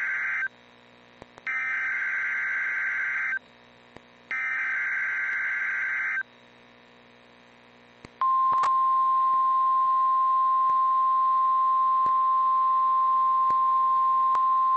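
Emergency Alert System SAME header on NOAA Weather Radio: the end of one burst of warbling digital data tones, then two more bursts of about two seconds each. About eight seconds in, the steady single-pitch 1050 Hz Weather Radio warning alarm tone begins and holds, heralding a tornado watch message.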